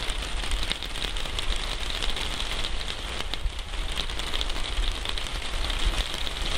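Steady rain falling, with many small drop ticks over a low rumble.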